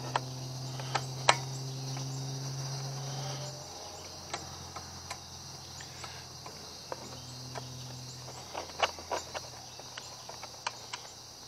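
Scattered metal clicks and clinks of a small wrench taking the three nuts off the recoil starter of a Briggs & Stratton 140cc engine, with one louder click about a second in. Under them run steady chirring crickets and a low hum that fades about three and a half seconds in.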